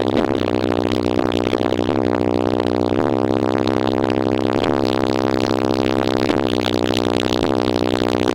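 Music played loud over a car audio system, with a heavy, steady bass line under a pitched melody.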